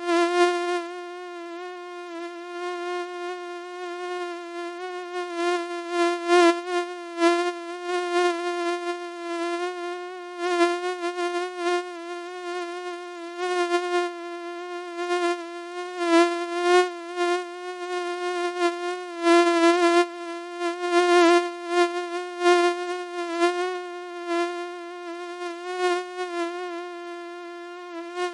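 Mosquito whine: a steady, high, thin buzz with a slight waver in pitch. Irregular short crackly bursts break through it now and then.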